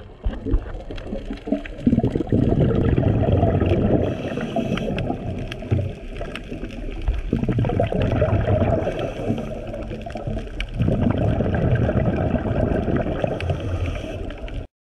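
Underwater bubbling of a scuba diver's exhaled breath, in low rumbling surges a few seconds apart, with faint scattered clicks between.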